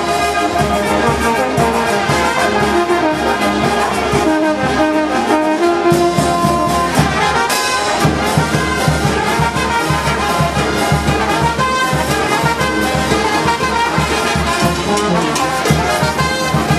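Marching brass band playing a tune, with trumpets and tubas, over a steady drum beat.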